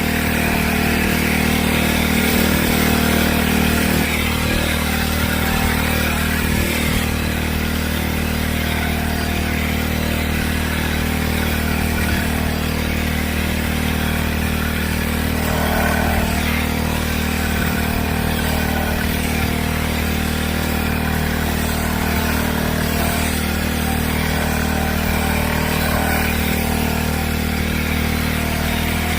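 Engine of a crop-spraying rig running steadily at constant speed, as used to spray an orchard.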